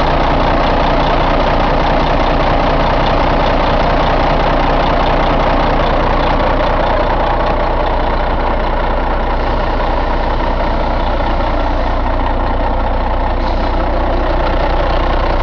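Caterpillar C15 inline-six diesel engine idling steadily.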